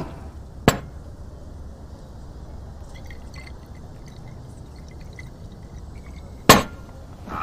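Glass liquor bottle handled while a man drinks from it: a sharp clink of glass about a second in, faint drinking sounds in the middle, then a loud knock of glass near the end, over a low steady background.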